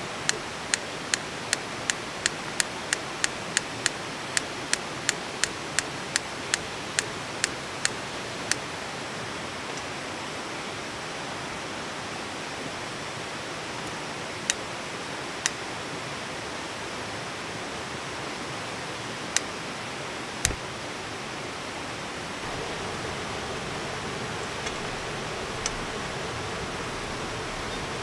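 A camping gas stove's igniter clicking rapidly, about two and a half clicks a second for the first eight seconds or so, then a few single clicks later. Behind it is a steady wash of heavy rain.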